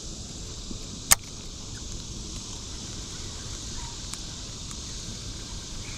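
Steady high buzz of insects, crickets or cicadas, from the lakeside. A single sharp click about a second in, with two fainter ticks later.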